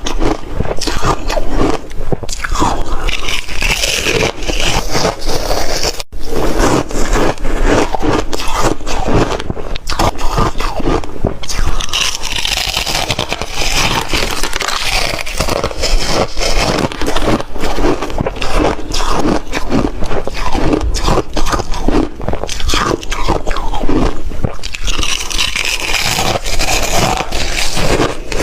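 Someone crunching and chewing shaved freezer ice close to the microphone, the crunches coming thick and fast one after another.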